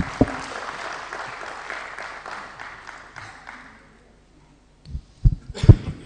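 Audience applauding, fading out after about four seconds, followed by a few low thumps near the end.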